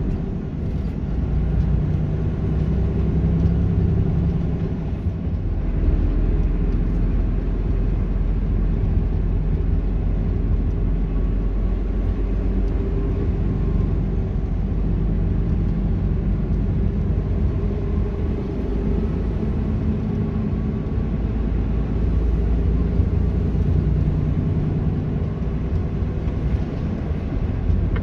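Motor vehicle engine running with a steady low rumble, its note swelling and easing a little.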